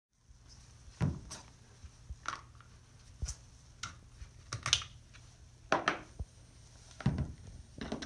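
Handling noise of a Carter 64200 ground fueling nozzle being turned over in the hands and taken apart at the poppet bumper: a dozen or so sharp clunks and clicks of metal parts, irregular and roughly a second apart, some knocking on a wooden table.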